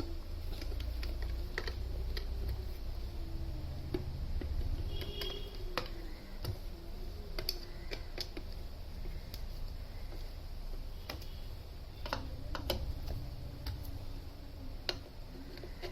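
Scattered light clicks and taps of small screws and a hand tool working on the ceiling fan's metal body, as screws are fitted, over a low steady hum.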